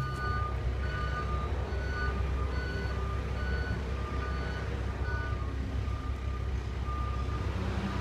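Short electronic warning beeps at two alternating pitches repeat over the steady low rumble of an NJ Transit double-decker commuter train, typical of a train's door or departure warning. The beeps stop about seven seconds in, and a low hum rises from the train as it starts to pull out.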